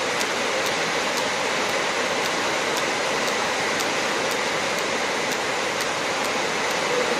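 TIG welding arc on thin 304 stainless steel pipe, a steady even hiss. Faint sharp ticks sound about twice a second.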